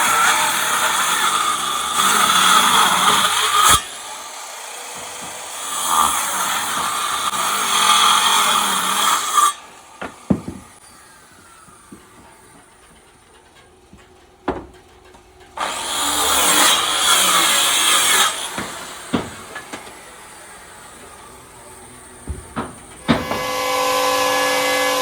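Electric power tool cutting wood in three passes of a few seconds each, with sharp knocks and taps in the quieter gaps between. Near the end a steady motor tone starts.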